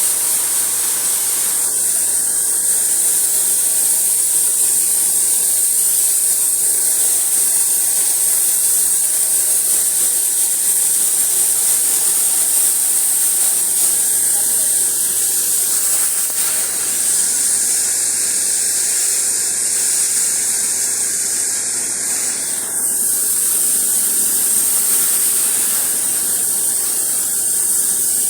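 Pressure washer spraying water onto a vehicle, a steady loud hiss that wavers briefly about three quarters of the way through.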